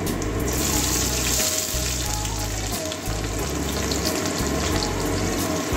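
Sliced onions dropped into hot mustard oil in a kadai, sizzling: the frying hiss comes in about half a second in and carries on steadily.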